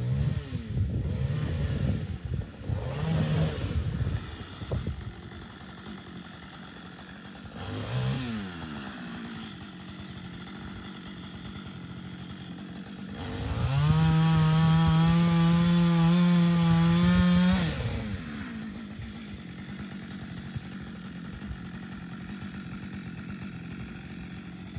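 A firewood saw running at full speed for about four seconds midway, a strong steady drone that rises slightly in pitch, between stretches of lower engine and machinery noise.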